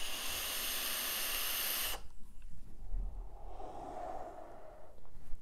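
A long hissing draw on a sub-ohm vape tank with its 0.15-ohm coil firing at 85 watts. The draw stops sharply about two seconds in and is followed by a long breathy exhale of the vapour.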